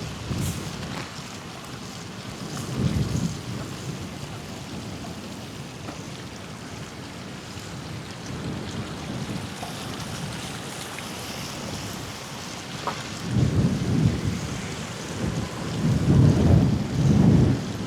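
Wind buffeting the microphone of a camera on a moving bicycle: a steady hiss with low rumbling gusts, the strongest in the last few seconds.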